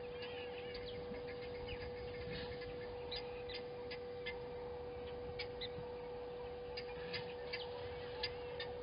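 Outdoor ambience: a steady hum with many short, sharp clicks scattered irregularly through it.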